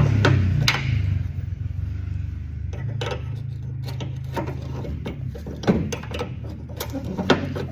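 Irregular metal-on-metal clicks and knocks from hand tools working a bolt welded onto a stripped hinge screw to turn it out, over a steady low hum.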